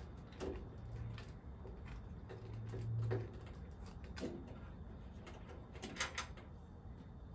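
A screw being backed out of the Harvest Right freeze dryer's panel above the touch screen with a screwdriver: faint scattered clicks and small knocks, the sharpest about six seconds in.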